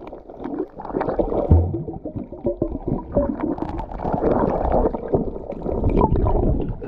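Muffled underwater rumbling and gurgling picked up by a camera held in shallow seawater, with many small clicks and crackles of water and hand movement against the housing.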